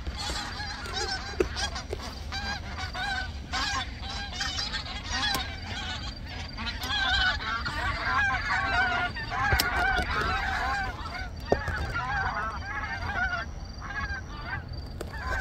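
A flock of migrating wild geese flying overhead, many honking calls overlapping in a steady chorus that grows fullest about halfway through.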